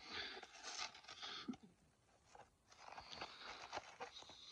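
Faint crunching and rustling of a polystyrene packaging tray and tissue paper being handled, in two spells with a short quiet gap about a second and a half in.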